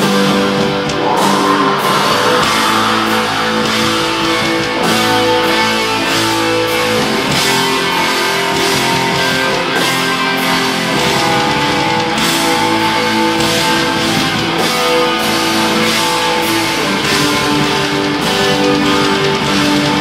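A black metal band playing live: distorted electric guitars hold long, slowly changing notes over steady drums and cymbal hits.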